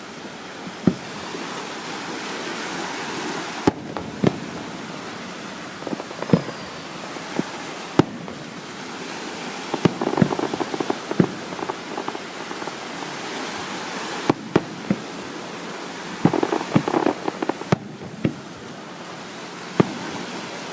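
Fireworks going off: scattered single loud bangs, with two spells of rapid crackling, one about halfway through and one about three-quarters through. Under them runs a steady hiss of surf and wind.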